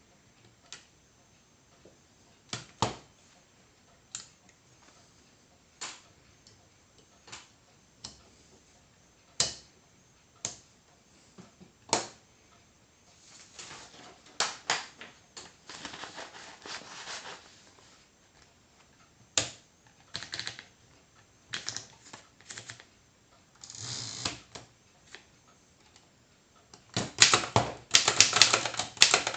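Circa 1918 Erika three-bank folding typewriter being typed on. Single key strikes land a second or two apart at first, with softer scraping stretches in between, then a rapid flurry of strikes near the end.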